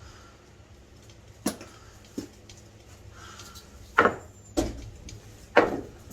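Sledgehammer blows on a 1922 cast iron boiler, each strike a sharp clank with a short ring: two lighter hits, then three heavy ones in the second half, breaking the cast iron sections apart.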